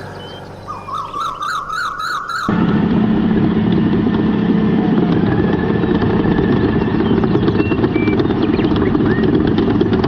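A fast-warbling, alarm-like tone for about two seconds, then an abrupt switch to a loud, steady heavy engine running.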